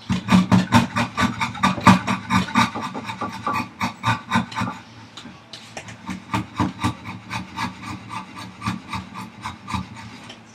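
Wood rasp filing a hardwood vise chop with quick, even back-and-forth strokes at about four to five a second. The work is enlarging the opening so it will slide over the vise's guide rods without binding. There is a short pause about five seconds in, and the strokes are lighter after it.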